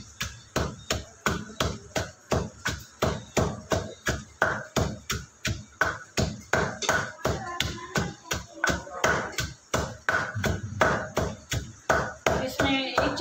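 Pestle pounding dried pomegranate seeds, green chilli and mint in a mortar, a steady run of knocks at about three strokes a second.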